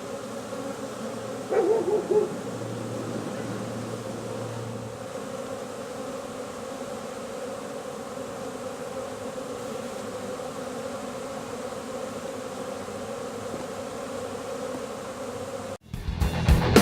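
Steady buzzing of a large honey bee swarm, the bees in the air after being shaken from their branch, with a brief wavering sound about a second and a half in. A cut near the end brings in rock guitar music.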